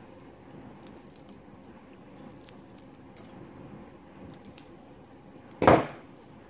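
Small clicks and snaps of white support material being picked and broken off a 3D-printed molecular model with pliers, then a single loud, short clunk near the end.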